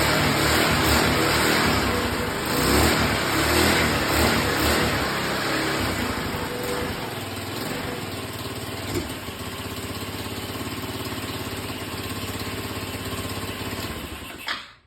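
A 2007 VIP GY6 scooter engine, just brought back to life after sitting in a junkyard, its carburetor freshly cleaned of sand. It revs unevenly for the first six or seven seconds, then settles into a steady idle, and the sound stops abruptly near the end.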